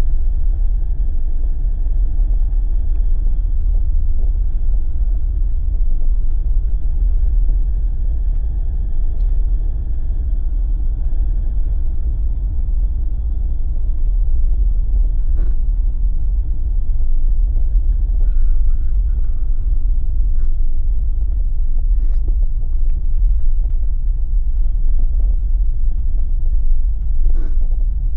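Steady low rumble of a Jeep driving along a snowy road, engine and tyre noise without change in pace, with a few faint clicks.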